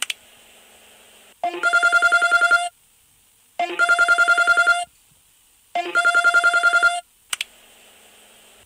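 Phone ringtone in the style of a telephone ring: three fast-trilling rings of about a second each, with pauses between.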